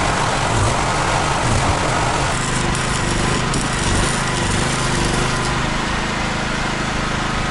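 A small engine running steadily, its even hum coming in about two seconds in, under a loud, even rushing noise.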